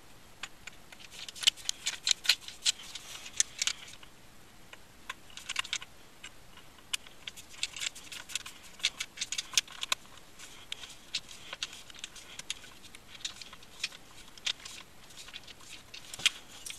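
Ratcheting screwdriver clicking in irregular bursts of sharp ticks as it drives the grip screw into revolver grips.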